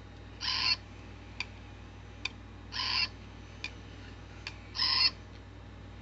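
Sega Toys Chirpy-Chi robot bird sounding three short electronic calls about two seconds apart, with a few faint clicks between them.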